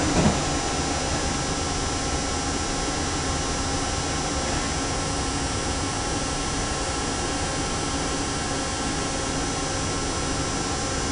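Hardinge T42 CNC lathe with live tooling running: a steady whirring hiss with faint high whine tones over it. There is one short swooping sound just after the start.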